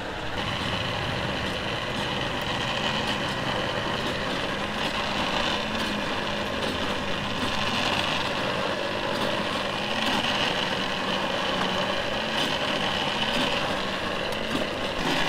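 A steady, engine-like drone with a low hum, and a few faint clicks over it.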